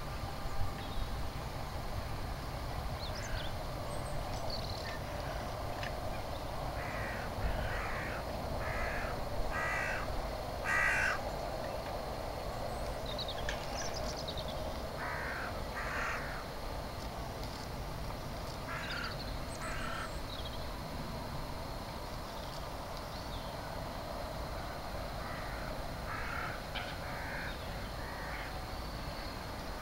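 A bird giving short, harsh calls: a run of about five a quarter of the way in, then pairs of calls later on, over a steady low background hum.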